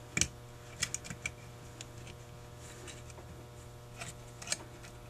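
Light, scattered clicks and taps of small metal parts as the choke linkage rod is worked into the fast idle cam of a Carter YFA carburetor. Most come in the first second and a half, and a couple more follow near the end, over a faint steady hum.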